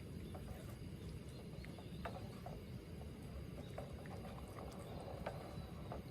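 Wood campfire crackling: irregular small pops and snaps, roughly one every half second, over a low steady background noise.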